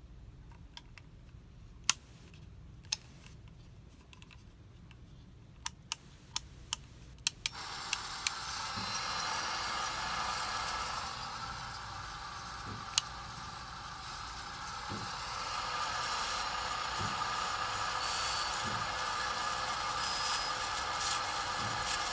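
Several sharp clicks, then about seven seconds in a Casablanca Spirit of Saturn ceiling fan motor starts and runs with a steady rough noise from its bad bearings, which are worn out and due for replacement. A faint low knock repeats about every two seconds.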